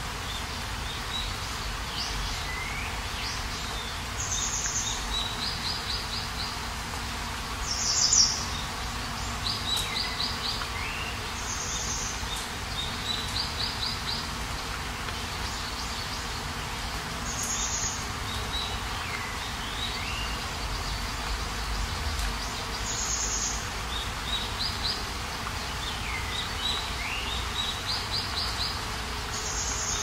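Birds chirping over a steady hiss of rain. Short high chirps, quick trills and little falling calls come every few seconds, the loudest about eight seconds in.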